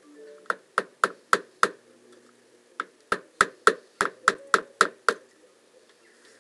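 Rapid sharp knocks on a front door, about three a second, in two runs: five raps, a pause of about a second, then nine more.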